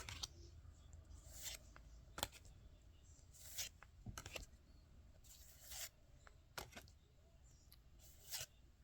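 Faint rustling and sliding of trading cards being handled and moved one behind another, in about eight short scrapes spread out with pauses between them.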